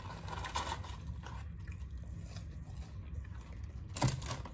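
A man chewing a mouthful of French fries close to the microphone, with light scraping and crinkling of a paper fry carton and wrapper. A brief louder crinkle comes about four seconds in.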